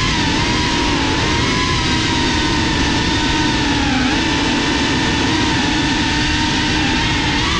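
FPV racing drone's brushless motors and propellers whining, picked up by the GoPro mounted on the drone, the pitch wavering with throttle and dipping briefly about four seconds in.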